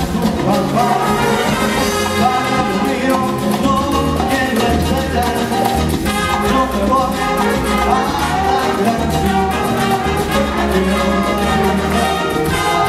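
Live salsa band playing, with a horn section of trumpets over keyboard, bass and percussion.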